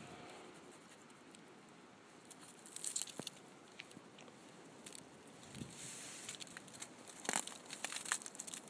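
A dog's paws scrabbling and scraping at a crusty snowbank, crunching and crackling the snow in two bouts: briefly about three seconds in, and again for a second or so near the end.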